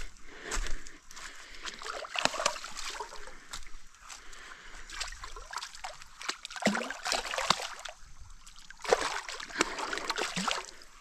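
Creek water splashing and sloshing in irregular bursts as a hooked eel-tailed catfish thrashes at the surface and a landing net is swept through the water to scoop it, with several sharper splashes among them.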